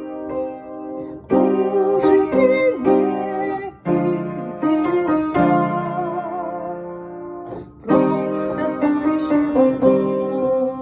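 Keyboard music: a slow melody played over sustained piano-like chords, in phrases that each start with a new chord.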